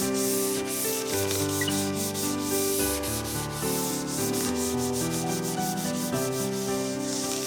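Quick, repeated rubbing strokes on a hard surface, like scrubbing or wiping, with background music playing under them.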